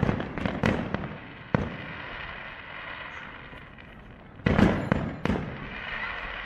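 Aerial firework shells bursting in sharp bangs: a quick run of them at the start, a single one a little later, then a louder cluster about four and a half seconds in. A steady hiss from the burning stars fills the gaps between bursts.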